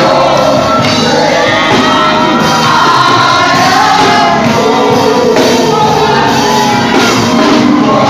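Loud live gospel praise-and-worship music, with a congregation singing and shouting along.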